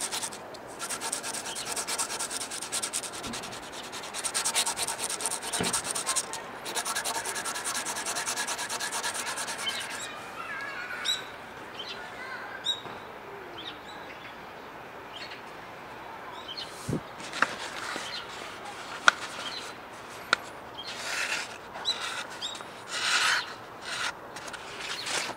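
A small pocketknife blade being sharpened, stroked rapidly back and forth on sandpaper laid on a wooden bench: a dense, fast scraping for about ten seconds, then it stops. In the quieter part that follows there are a few short bird chirps, and near the end the freshly sharpened blade slices paper in several short rasping cuts.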